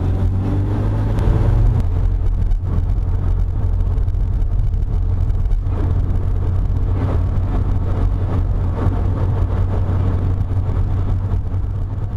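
Car interior driving noise: a steady, loud low rumble of engine and road. The engine rises in pitch during the first second or two as the car pulls away and accelerates.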